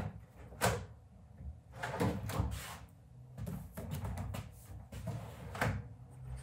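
A wooden panel being handled and fitted into a wooden cart frame: several sharp wooden knocks with scraping in between.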